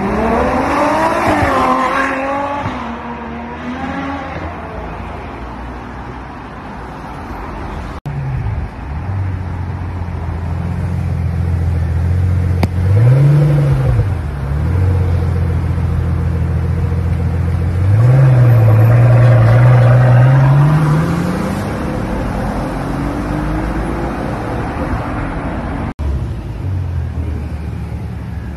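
Supercar engines in a string of short clips. First, one accelerates hard, its revs climbing twice. Then a Pagani Huayra's twin-turbo V12 idles with a quick throttle blip and one longer rev that climbs and falls, and near the end another engine idles.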